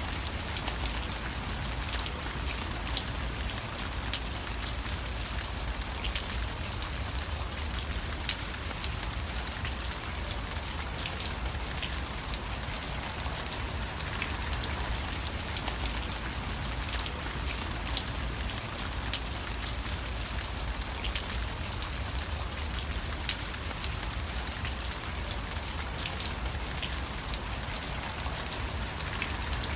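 Steady rain falling on a surface, with many individual drops ticking sharply over an even hiss and a low steady rumble underneath.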